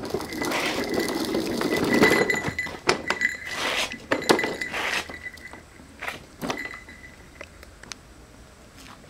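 Hard plastic toy ride-on car rolling and scraping over paving stones, with several sharp plastic knocks and clacks. The rolling noise fades about five seconds in, leaving a few scattered knocks.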